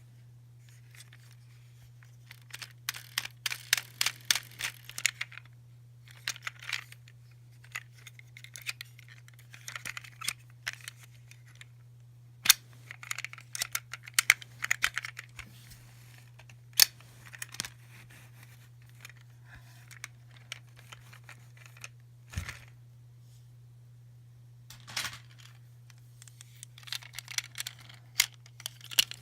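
Wrappers and plastic toy packaging being handled and opened: bursts of crinkling and tearing with sharp plastic clicks and a dull thump about two-thirds of the way in, over a steady low hum.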